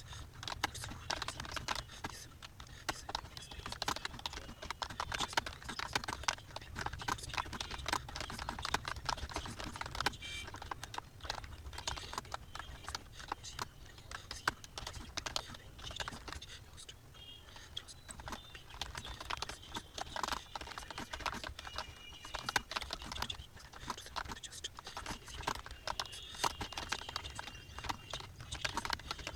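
Computer keyboard being typed on at speed: a fast, irregular stream of key clicks, with a low steady hum underneath.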